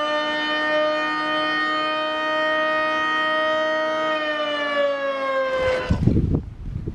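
Federal Signal Thunderbolt 1003 B-series outdoor warning siren sounding a loud, steady chord of tones. About four seconds in its pitch starts to sag. Near the end it gives way suddenly to loud, irregular rumble on the microphone.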